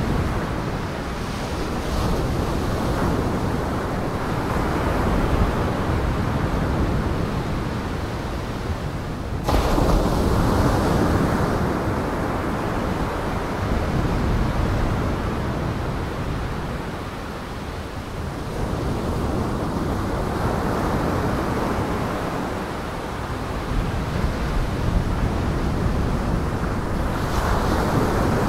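Rushing noise of gale wind and breaking surf, swelling and easing every few seconds, with an abrupt jump in level about nine and a half seconds in.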